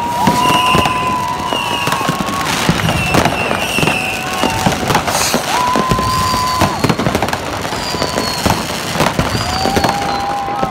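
Fireworks and firecrackers going off all around: a dense run of bangs and crackles, with several steady whistles of a second or two each at different pitches, and a few high whistles that slowly fall.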